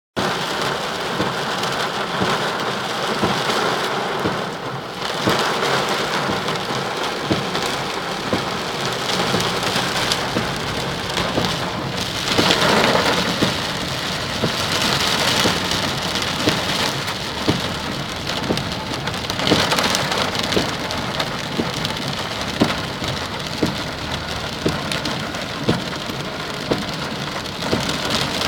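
Heavy rain falling steadily, with many separate drops striking a hard surface close by.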